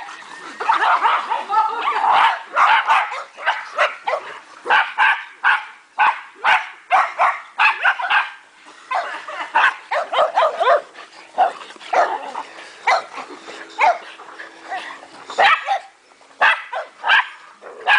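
Several dogs barking and yipping in play, many short overlapping barks a few times a second, densest about the first two seconds.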